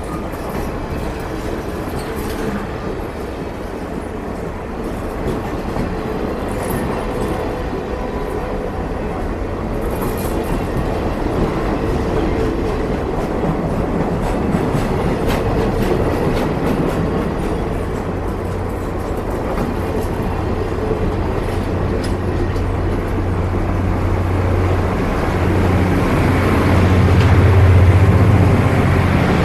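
Stainless-steel streamlined passenger cars rolling past close by, their steel wheels rumbling steadily on the rails with scattered clicks. The sound grows louder near the end, where a strong low drone comes in.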